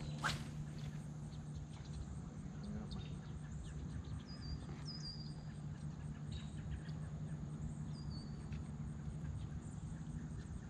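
Quiet outdoor ambience: a steady low hum, a sharp click just after the start, and a few short, faint bird chirps around the middle.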